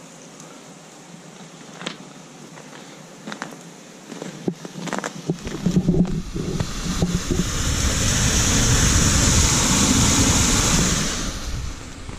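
Rustling and rumbling handling noise on the camera's microphone. A faint hiss with a few clicks gives way, about five seconds in, to loud rough rustling that fades near the end.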